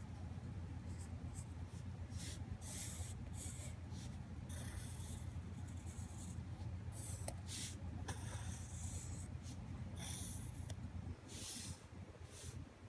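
Pencil lead scratching across paper in short, irregular sketching strokes, over a low steady hum.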